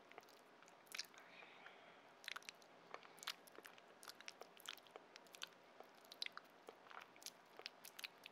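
Faint close-up mouth sounds of chewing raw fish (hoe): irregular soft, wet clicks and smacks, a few to several a second, with no steady rhythm.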